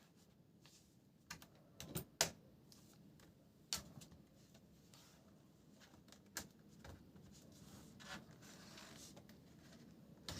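A few scattered sharp clicks and taps of small hard parts being handled, with a soft scraping rustle near the end.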